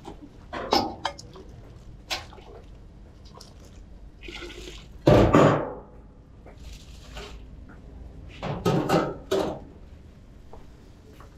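Noodle-stall kitchen work: bowls and utensils knocking and clinking, with liquid poured or splashed. A louder rush of noise comes about five seconds in, and a quick run of knocks near the end.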